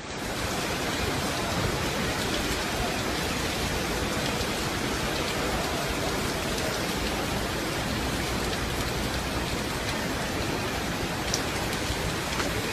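Heavy rain pouring steadily, a dense even hiss with no let-up.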